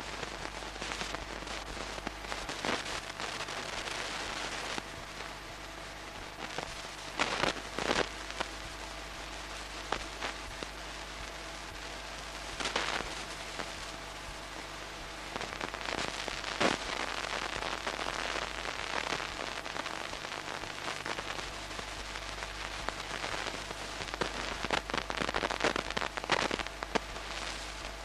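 Steady hiss with irregular crackling, a few louder clicks and a faint low hum: the background noise on the soundtrack of a silent old home-movie film transfer.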